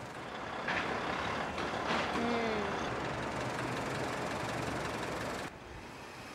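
Outdoor traffic noise with trucks, a dense steady rush, with a short falling whine about two seconds in. The noise drops suddenly shortly before the end.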